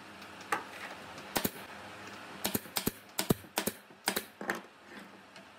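Pneumatic nail gun firing brads into a wooden frame: a series of about nine sharp clacks at uneven intervals.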